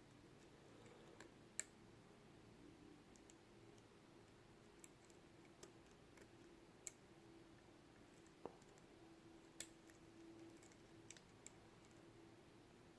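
Faint, irregular small clicks of a lock pick and tension tool working the pin-in-pin stacks of a Mul-T-Lock Jr. lock cylinder, about a dozen over the stretch, over a faint steady low hum.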